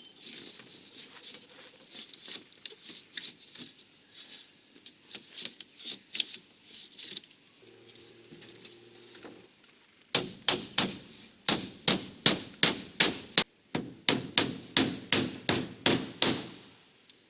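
Hammering: two runs of loud, evenly spaced strikes, about three a second, with a short break between them. Before them come faint, irregular light clicks and scratches and a brief low hum.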